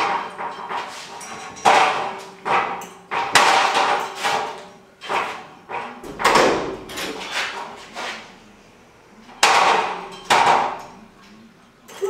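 A dozen or so sharp metallic clanks and knocks, some ringing briefly, as heavy fat-tire e-bikes are handled and set down into a welded steel hitch-mounted bike rack.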